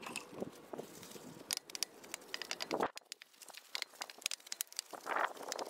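Brush scrubbing a car wheel: irregular scratchy, crackling strokes of bristles against the wheel and tyre, denser near the end.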